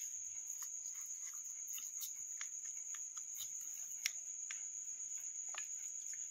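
Crickets trilling in one continuous high-pitched tone, with faint scattered clicks and taps.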